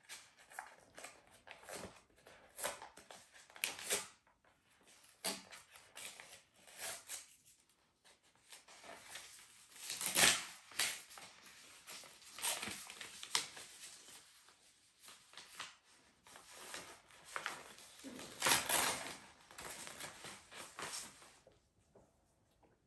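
Paper rustling and crinkling as an envelope and a folded letter are opened and unfolded by hand, in irregular handling noises with louder crackles about halfway through and again a few seconds before the end.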